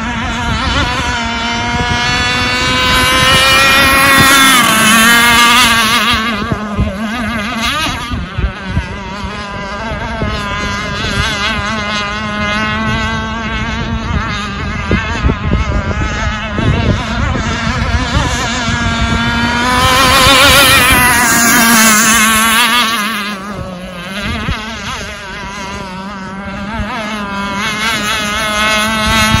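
Enforcer Stingray RC hydroplane running at speed on open water, its motor a steady, wavering note. It grows louder twice as the boat runs past, about 4 seconds in and again about 21 seconds in, with the pitch dropping after each pass.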